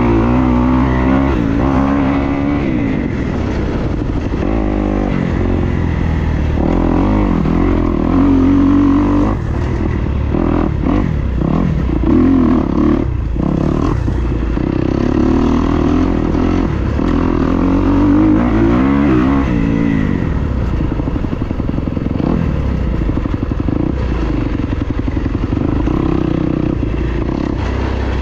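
Dirt bike engine running under riding load, its pitch climbing and dropping again and again as the throttle is opened and closed and the gears change. A few sharp knocks and clatter come near the middle.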